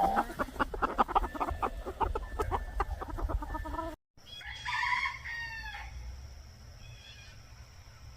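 Chickens clucking with many short, rapid calls. After a short break, a rooster crows once for about a second, and a few fainter calls follow.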